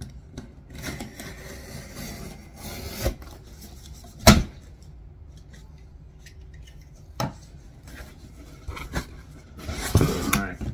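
A box-cutter knife slicing and scraping through packing tape on a cardboard box, with a sharp knock about four seconds in and a smaller one a few seconds later. Near the end, cardboard rubbing and rustling as the box is handled.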